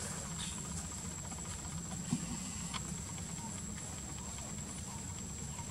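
Forest ambience: a steady high-pitched insect drone over a constant low rumble, with a few faint ticks and one soft thump about two seconds in.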